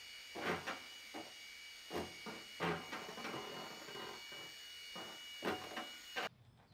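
Irregular knocks and rubbing scrapes from work on a metal roof, with louder knocks about half a second, two seconds and five and a half seconds in, over two steady high tones. The sound cuts off suddenly near the end.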